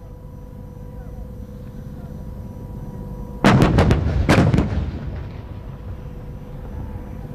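A battery of self-propelled howitzers firing a ragged volley: about half a dozen heavy gun blasts in quick succession, starting a little over three seconds in and packed into about a second, then a low rolling echo that dies away. Before the volley there is only a low steady rumble.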